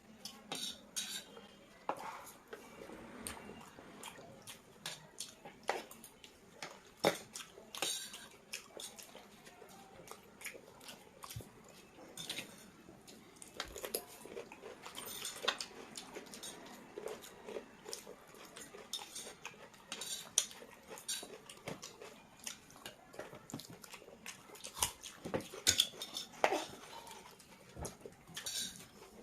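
People eating chowmein, boiled eggs and salad from plates: cutlery clinking and scraping against the dishes at irregular intervals, with chewing and mouth sounds.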